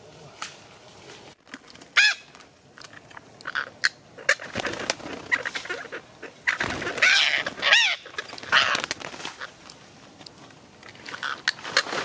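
Psittacula parakeets squawking: a series of harsh calls that arch up and down in pitch. The loudest comes about two seconds in, with a dense cluster around seven to eight seconds in.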